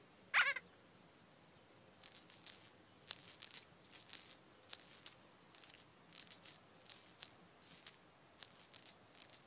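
A shaker or rattle in the programme's soundtrack music, shaken in short strokes about twice a second. It is preceded about half a second in by a brief wavering whistle-like tone.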